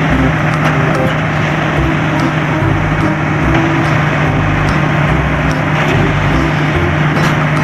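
Heavy truck engine running steadily, a loud vehicle sound effect for a cement mixer truck, with a constant low hum under a dense engine noise.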